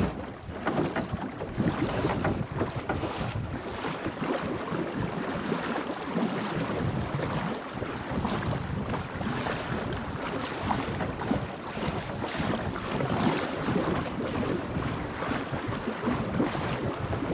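Wind buffeting the microphone over water rushing and splashing along the hull of a small sailing skiff under way, with the level rising and falling in gusts.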